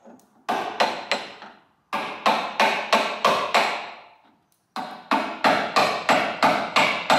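Hammer driving a screwdriver used as a chisel into thick body filler (bog) on a car's steel front guard, chipping it off. There are three runs of sharp blows, about three a second, with short pauses between the runs.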